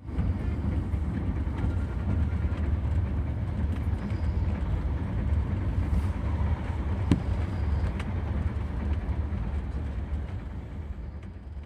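Steady low rumble of trains running on rails, heard from aboard a moving train as the Shatabdi Express passes on the next track, with a few sharp clicks, the loudest about seven seconds in. The rumble eases slightly near the end.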